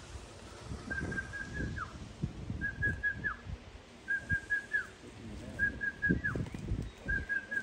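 A high whistled phrase, three or four quick notes on one pitch ending in a falling slur, repeated five times about every one and a half seconds. Wind gusts buffet the microphone underneath.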